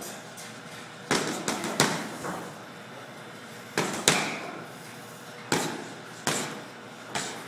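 Boxing gloves hitting focus mitts in short combinations: sharp hits, three or four in quick succession about a second in, a pair near four seconds, then single hits spaced about a second apart.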